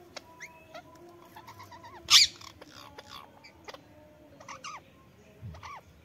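A flock of Indian ringneck parakeets chirping and squawking in short calls, with scattered clicks between them. One loud harsh call comes about two seconds in.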